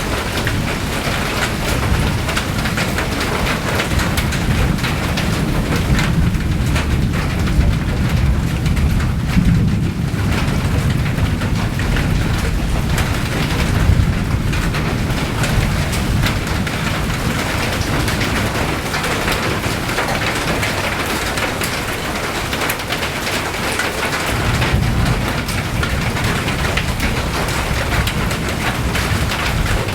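Steady rain falling, a dense hiss full of fine drop ticks, over a low rumble that swells around the middle and again near the end.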